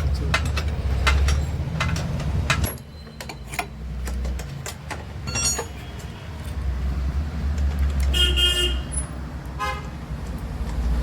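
Motor traffic rumbling, with short vehicle horn toots, the clearest about eight seconds in. Sharp metallic clicks and knocks sound throughout.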